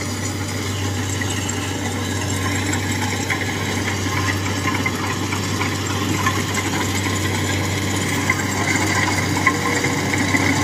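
Kubota rice combine harvester's diesel engine running steadily as the machine moves into standing rice to start cutting, growing slightly louder as it comes closer.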